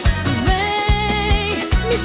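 Upbeat Brazilian tecnobrega and calypso-style pop song: a steady kick drum and bass beat, a little over two strokes a second, under a held melodic note with vibrato.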